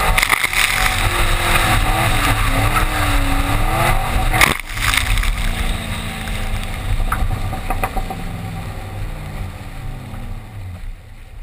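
2010 Camaro SS's 6.2-litre V8 revving up and down during a drift on wet tarmac, with tyres hissing through standing water. A sharp knock comes about four and a half seconds in, then the engine pitch slides down and the sound fades as the car slows.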